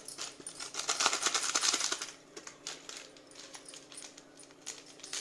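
Spoon stirring and scraping in a stainless steel bowl, mixing packet soup powder into water: quick metallic clicks and scrapes, busiest for the first two seconds, then lighter, scattered taps.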